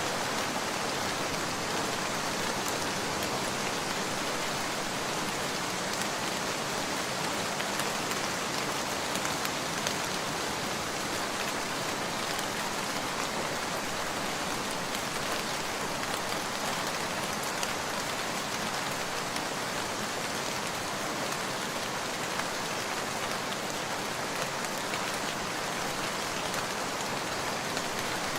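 Heavy rain falling steadily: a dense, even hiss of rain with many small drop ticks scattered through it.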